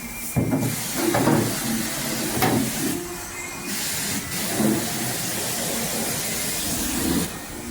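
Self-serve car wash high-pressure spray wand hissing steadily as its jet hits a refrigerator, with water splattering unevenly off the surface.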